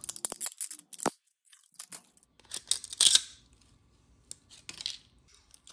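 Long-nosed tweezers tearing and snapping printed PLA support material off a 3D print, in a broken run of sharp clicks and crackles with short pauses, the loudest about three seconds in.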